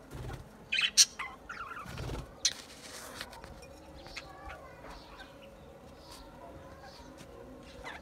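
Budgerigars chirping and chattering, with a loud cluster of sharp chirps about a second in and softer chirps after. A bird's wings flap close by near the start and again about two seconds in.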